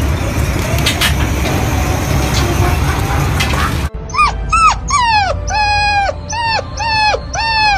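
Steady outdoor street noise, then from about four seconds in a brown puppy howling: a string of about eight short, high howls, each dropping in pitch at the end, a couple of them drawn out longer.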